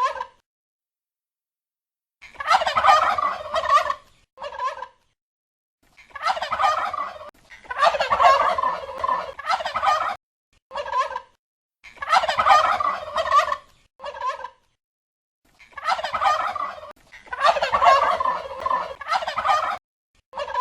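Turkey gobbling: a string of rapid, rattling gobbles, each about one to two seconds long and often followed by a short separate note, with silent gaps of a second or two between them.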